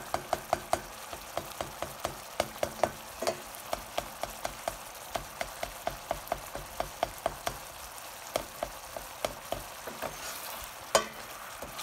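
Thick flour-thickened sauce simmering in a skillet, its bubbles bursting in sharp little pops several times a second over a soft sizzle, with a spatula stirring through it.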